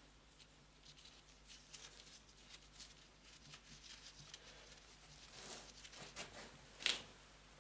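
Faint clicks and scrapes of a wrench working loose the muffler bolts on a Huter BS-45 chainsaw, with the rustle of a gloved hand; one sharp metallic click near the end stands out as the loudest.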